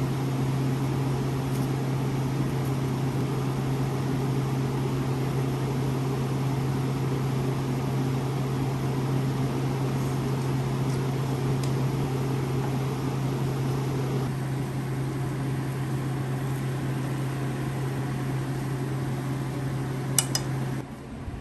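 Microwave oven running with a steady low hum. Near the end there is a sharp click, and the hum cuts off.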